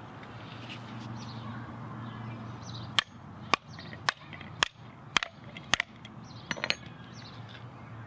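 Hammer tapping a plastic pipe down into a hole in a wooden 2x4 block: six sharp knocks about half a second apart starting about three seconds in, then a few lighter taps.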